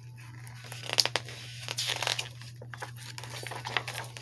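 Paper pages of a picture book rustling and crinkling as they are handled and turned, with sharper crackles about one and two seconds in.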